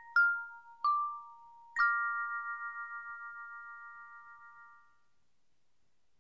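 Short outro jingle of bell-like struck notes: two single notes, then a final chord just under two seconds in that rings on and fades away.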